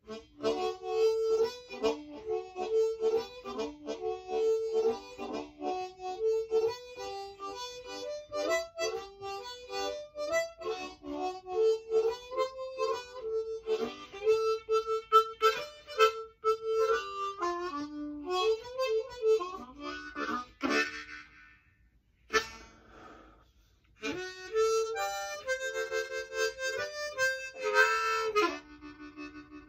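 Ten-hole diatonic harmonica played solo: a run of quick single notes and chords, with some notes bent down and back up. A short break about three-quarters through, then the playing picks up again.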